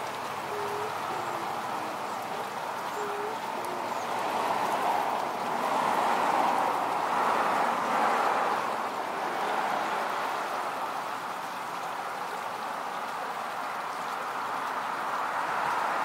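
Steady rushing noise like running water or rain, swelling a little in the middle, with two short faint chirps in the first few seconds.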